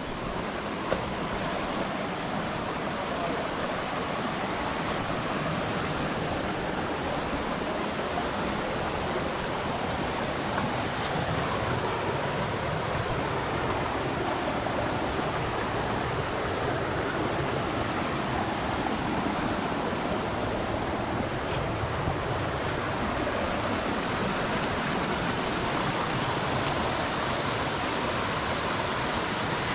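Steady rushing of water from a tiered jungle waterfall and its stream.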